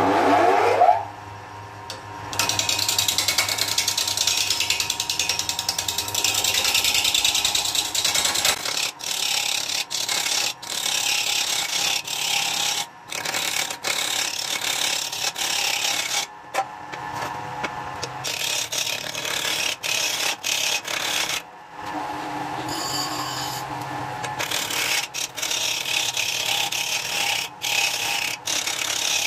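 Wood lathe with a large wooden vase blank: a short rising whine in the first second as it speeds up, then a hand-held turning tool cutting into the spinning wood with a loud rough rasping scrape, broken again and again by short gaps as the tool comes off the wood.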